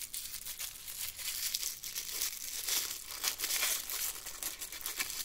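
A small printed wrapper around a toy accessory crinkling as fingers pull it open: a dense run of fine crackles.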